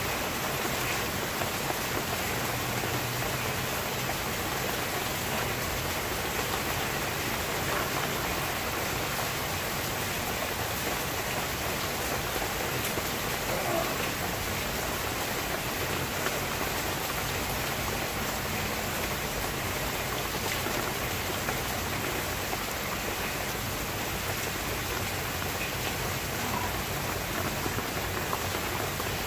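Steady rain falling, an even hiss with no letup.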